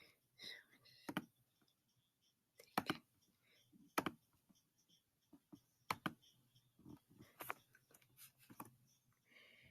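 Scattered clicks of a computer mouse and keyboard, single sharp clicks about every second.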